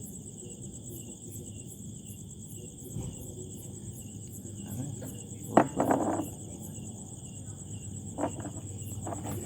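Insects chirring steadily in a high, fast-pulsing drone. A sharp knock with a short scuffling burst comes about halfway, and a lighter knock near the end.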